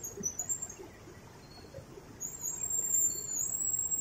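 Fast water rushing in a steady wash, with a few short high-pitched chirps near the start. About halfway through, a long thin high whistle sets in and holds steady, louder than the water.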